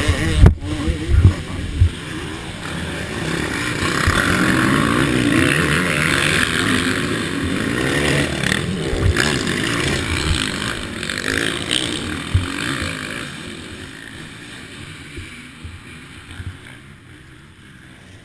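Motocross bike crashing in loose dirt: several heavy knocks in the first two seconds as it goes down, then the engine keeps running with a wavering pitch under wind noise on the camera's microphone, dying down over the last few seconds.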